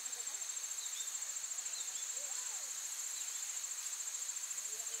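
A steady, high-pitched chorus of insects trilling with a fast, even pulse.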